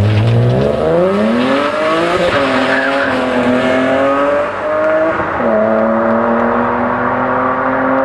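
BMW E46 M3's S54 straight-six, through Evosport headers and a Supersprint race exhaust, accelerating hard away. The revs climb steeply, drop at an upshift about two seconds in, climb again, and drop at a second upshift a little past five seconds.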